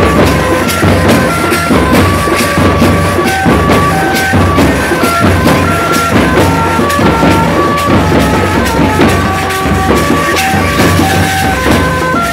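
Marching bass drum beaten with a curved stick together with fast tasha drumming, under a melody of held notes from a band instrument. The drumming is loud and dense, with no break.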